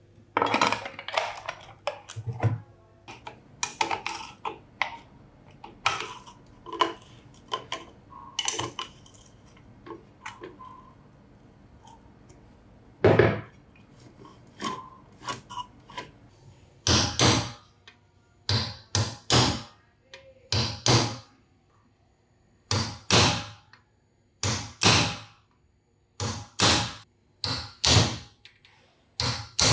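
Metal tool parts knocking and clicking as they are handled, scattered at first, then about halfway through a run of short, sharp knocks roughly one a second.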